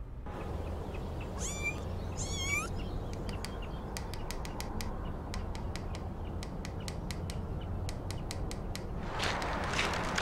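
Two short high calls about a second apart, each sweeping down in pitch, over a steady low hum. A run of sharp clicks follows, then a rise of rushing noise near the end.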